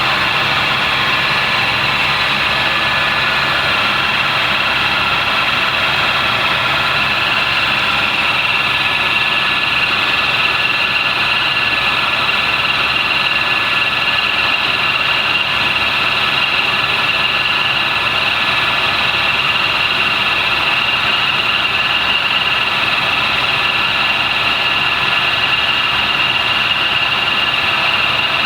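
Helicopter in steady cruising flight: continuous engine and rotor noise with a steady high whine that holds level throughout.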